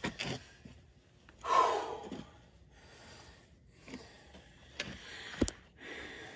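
A man breathing hard in a run of heavy puffs and gasps from physical effort, the loudest about a second and a half in. Two sharp clicks come near the end.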